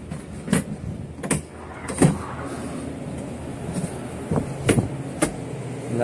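A steady low machinery hum, crossed by five sharp knocks and rubbing as a handheld phone jostles against a hoodie.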